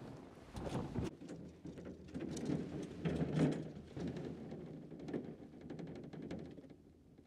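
Scuffling, taps and knocks inside a wooden rabbit hutch with a wire-mesh floor, as two rabbits move about together during a breeding attempt. The knocks cluster most loudly about three and a half seconds in.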